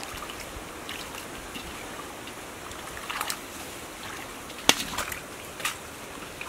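Hands groping through shallow muddy water, feeling in the mud for fish, with scattered small splashes. One sharp splash a little under three-quarters of the way in is the loudest.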